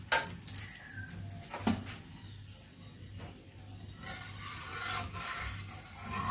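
Steel spatula clicking and scraping against a paratha on a hot coated tawa: a sharp click at the start, another just under two seconds in, then a longer rasping scrape through the last two seconds as the oiled paratha is worked and lifted.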